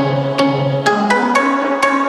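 Background music: a melody of short notes over a light clicking beat.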